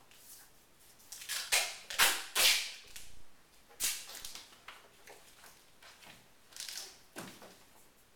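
Grey adhesive tape being pulled off its roll in a few short, loud rips, the loudest about two seconds in, followed by fainter single rips as strips are torn and stuck to paper.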